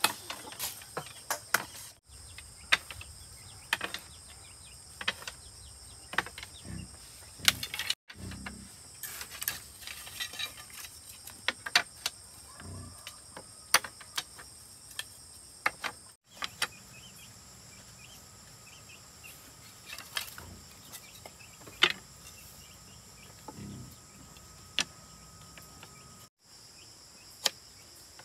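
Steady high-pitched insect trilling, with scattered sharp knocks and clicks.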